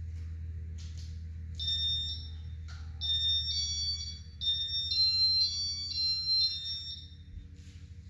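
Casablanca ceiling fan's electronic control beeping a quick tune of high-pitched tones that step between two or three pitches, as demo mode starts the fan.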